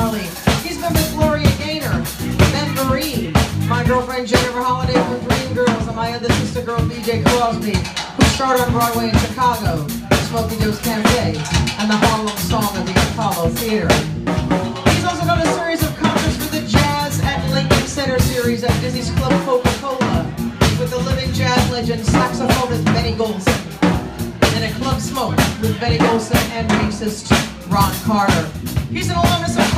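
A live band plays instrumental music: an electric keyboard (synth) carries a wavering melody over a steady drum-kit beat with snare and bass drum.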